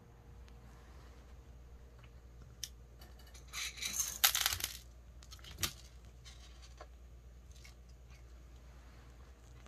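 A cat pawing through the bars of a wire pet cage: a short burst of scratching and rattling about four seconds in, then a single sharp click.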